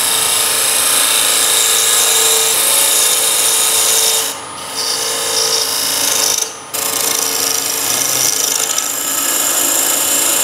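Turning tool cutting a tenon into a wooden blank spinning on a wood lathe: a steady, loud scraping hiss of the cut, which drops away briefly twice, about four and six and a half seconds in.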